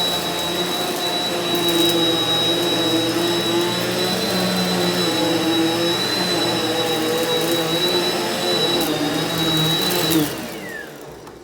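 Eureka NEU180B Power Speed upright vacuum cleaner running on carpet with a steady high whine. About ten seconds in its motor cuts off and winds down.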